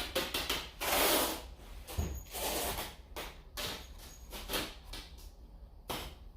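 A paintbrush scrubbing oil paint onto canvas: a run of short, scratchy strokes, the loudest about a second in.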